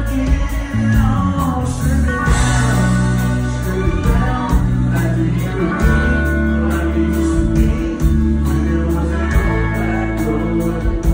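Live country band playing: acoustic and electric guitars with a steady bass line, and a man singing into a microphone.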